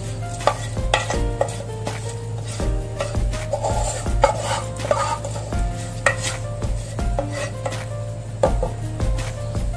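Wooden spoon scraping and tapping washed rice out of a non-stick pan into a pot of boiling water, in irregular strokes, over background music.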